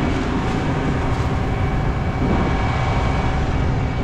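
John Deere S540 combine harvesting corn: engine, corn head and threshing system running steadily under load, with a faint steady whine over the machine noise.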